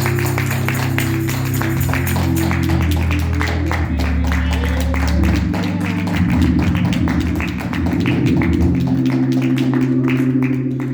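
Church music played after the sermon: sustained chords shifting over a low bass line, with a dense run of sharp taps throughout.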